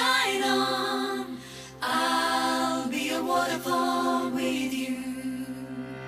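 Women's voices singing together in close harmony over a steady low sustained note, with a short drop in level about a second and a half in before the voices come back in.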